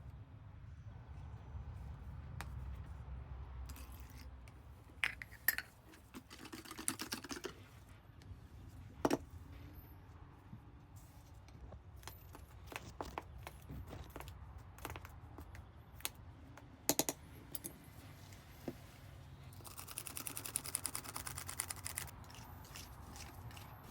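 Kitchen utensils clinking and tapping against a bowl while batter ingredients are mixed, with scattered sharp taps and two short spells of quick, rapid strokes, the longer one near the end.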